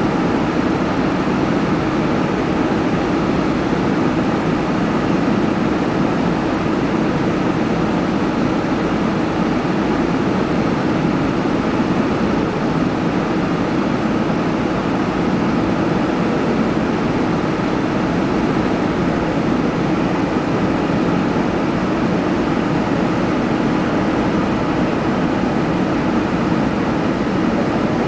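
Steady drone of a car driving at an even speed, the engine and tyre noise heard from inside the vehicle.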